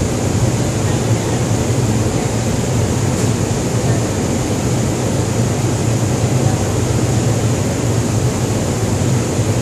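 Steady low drone of a ship's machinery: a constant hum with an even hiss over it and no breaks.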